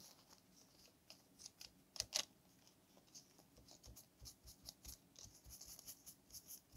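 Faint rustling and small clicks of paper being handled and pressed down onto a glued journal page, with two louder clicks about two seconds in.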